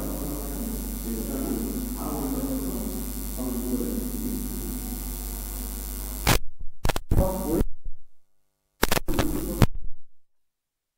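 Steady electrical mains hum in the microphone's audio, with a faint voice underneath. About six seconds in come loud crackling bursts, with two drop-outs to dead silence, and then the sound cuts out completely.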